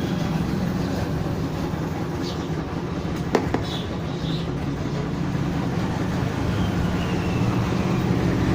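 Steady low background rumble, with two sharp clicks about three and a half seconds in.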